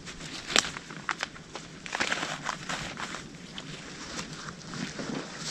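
Footsteps crunching through dry leaves and twigs, a run of irregular crackles with one sharp snap about half a second in.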